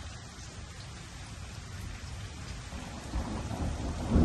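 Steady rain falling, with a rolling rumble of thunder that builds about three seconds in and grows louder at the end.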